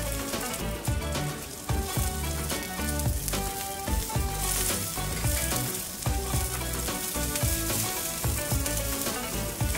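Sliced shallots, garlic and red chilies sizzling as they fry in oil in a nonstick frying pan, stirred with a spatula, under background music.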